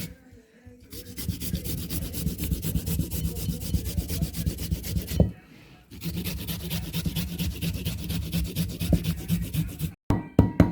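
Fresh ginger root being grated on a hand grater: quick, even rasping strokes that stop briefly about halfway through and then resume.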